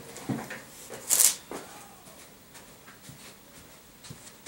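A person getting up out of an office chair and moving away: clothing and chair rustle, a short sharp swish about a second in, and scattered light knocks and creaks.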